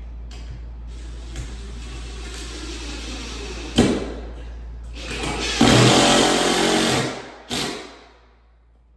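A sharp knock, then a cordless power drill running for about a second and a half, driving a screw to fasten a ceiling fan mounting bracket, followed by a click.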